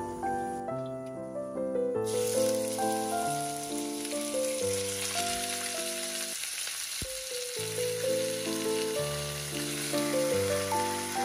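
Raw meat chunks frying in hot oil in a wok: a steady sizzle that starts suddenly about two seconds in, under background music.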